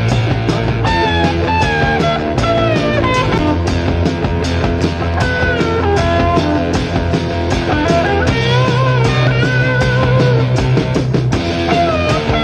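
Blues-rock band recording playing an instrumental passage: a lead electric guitar plays bending, sliding notes over bass and drums.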